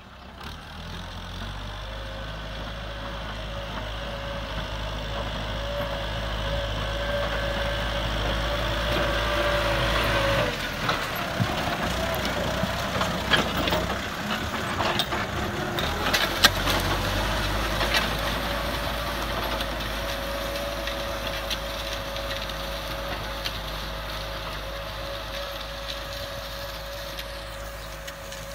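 Kubota M6040 tractor's diesel engine running steadily while it pulls a disc plow through dry soil, growing louder over the first ten seconds. Then comes a rougher stretch of the plow discs cutting soil, with scattered clanks and knocks, before the steady engine note returns and slowly fades.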